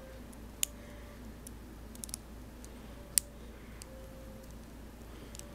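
LEGO plastic pieces clicking as they are handled and pressed together: a few separate sharp clicks, the loudest a little after three seconds in.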